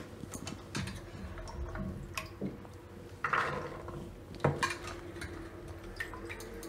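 Wet soaked chickpeas dropped by the handful into a pressure cooker pot: scattered light clatters and drips of water, with a brief rustling burst a little after three seconds and a sharper knock about four and a half seconds in.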